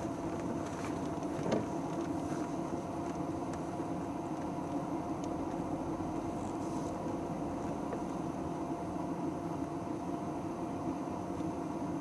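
A steady mechanical hum, like a running motor or engine, with a constant faint whine and a few scattered light clicks.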